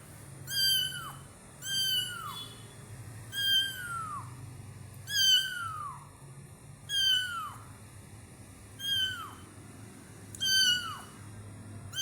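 Kitten meowing over and over, seven high-pitched meows about every one and a half to two seconds, each one falling in pitch.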